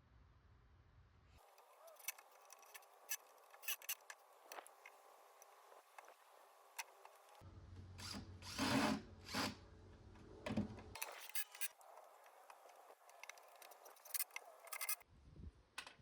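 Drill driving pocket-hole screws into 2x4 boards, in short edited runs with sharp clicks and knocks of wood and tools. The loudest stretch comes about eight to nine and a half seconds in.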